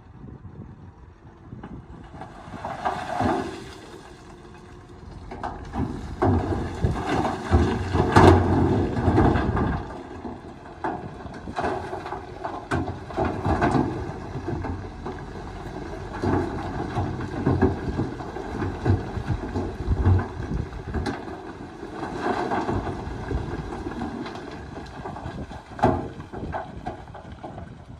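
Heavy diesel earthmoving machinery working: the engine rises and falls in surges under load, loudest about eight seconds in, with scattered metallic clanks.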